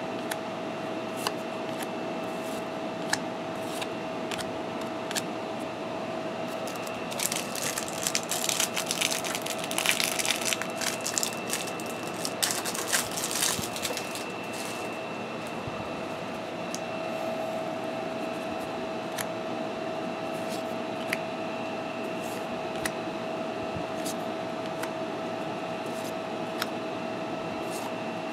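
Trading cards being handled and set down on a table: scattered light clicks as cards are placed. A stretch of crinkling and rustling in the middle is typical of cardboard cards and wrapper being handled. A steady hum with a faint steady whine runs underneath.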